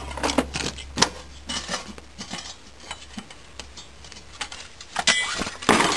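Loose metal engine parts and scrap clinking and clanking as they are rummaged through and handled, with a couple of louder clatters near the end.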